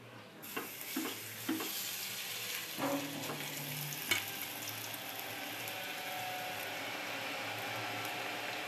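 Pui-leaf and rice-flour fritter batter frying in shallow oil in a nonstick pan, a steady sizzle that starts just after the opening. A few light knocks come in the first four seconds, the sharpest about four seconds in.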